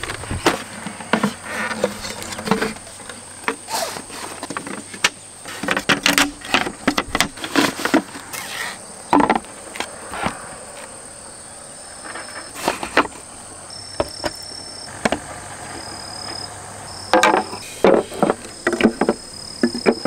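Crickets or other insects chirp in a steady high drone. Over it come frequent knocks and clatter as wooden table tops, trays and camping gear are handled and set down.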